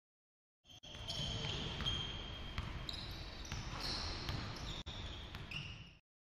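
Basketball game on a hardwood gym court: a ball bouncing, sneakers squeaking in high notes, and players' voices over the rumble of a large hall. The sound starts suddenly about a second in and cuts off near the end.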